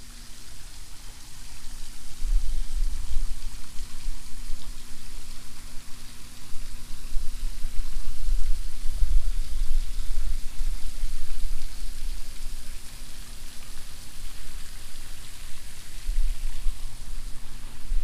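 Wind buffeting the microphone in uneven deep rumbles that swell and fade, over a steady hiss.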